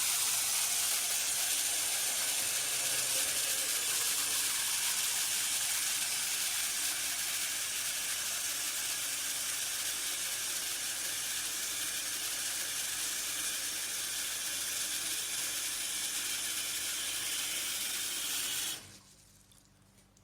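Bathroom tap running steadily into a basin closed by its pop-up plug, filling it to test the seal. The water stops suddenly near the end.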